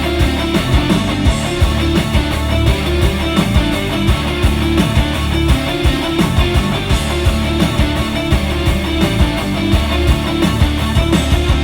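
Guitar rock music playing through a 2020 BMW 840i Gran Coupe's 16-speaker Harman Kardon audio system, heard from the driver's seat, with a steady beat.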